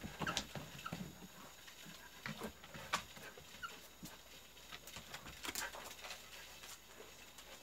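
Jindo dog giving a few short, faint whines, among scattered light clicks and taps.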